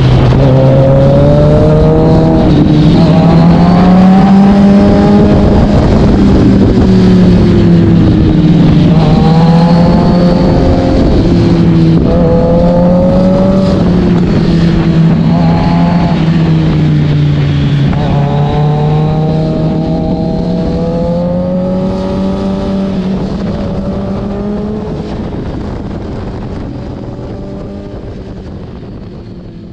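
Kawasaki Z900's inline-four engine through an SC-Project S1 exhaust, heard from on board while riding: the revs climb and drop repeatedly as the bike accelerates and shifts through the gears. The sound grows steadily fainter over the last several seconds.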